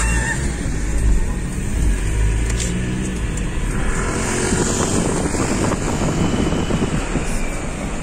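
Car driving, heard from inside the cabin: a steady low rumble of engine and tyres on the road.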